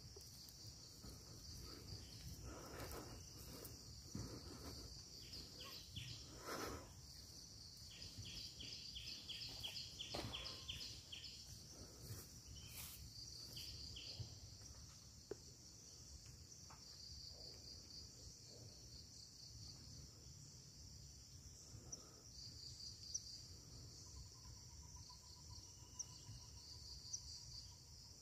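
Faint, steady high-pitched chorus of insects, with a person's footsteps through roughly the first half.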